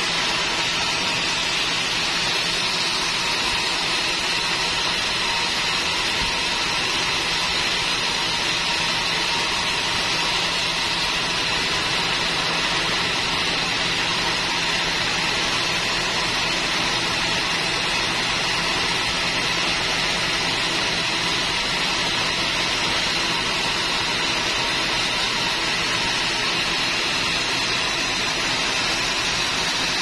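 Band sawmill running steadily, its vertical band saw blade cutting lengthwise through a teak log. There is an even, high-pitched hiss of the cut over the hum of the machine, with no pauses.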